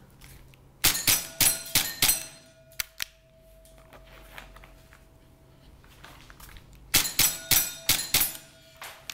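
Tokyo Marui Sentinel Nine gas blowback airsoft pistol fired in two fast strings of about five shots each, roughly a third of a second apart, with BBs striking steel plate targets. A plate's ring hangs on for a few seconds after the first string.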